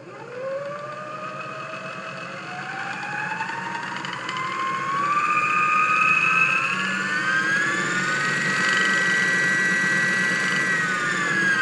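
Electric motor of a homemade guitar pickup winder, belt-driving the bobbin spindle and run up with a foot controller: a whine that climbs steadily in pitch for about eight seconds, holds at top speed of about 1500 RPM, then winds down quickly near the end.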